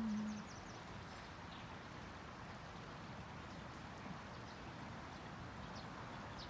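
The held last note of the music dies away in the first half-second, leaving the faint steady rush of the Hotaka River with a few faint bird chirps.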